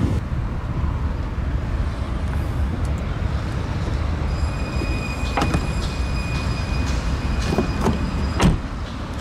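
Clicks and knocks of a car's door and trunk lid being handled over a steady low rumble, with a thin high steady tone from about four seconds in; the loudest knock comes near the end.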